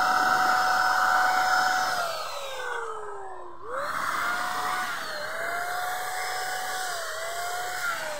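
Handheld electric paint spray gun whining steadily as it sprays. About two seconds in its motor slows and the pitch sinks, then it speeds back up just before four seconds and runs on with brief small dips in pitch.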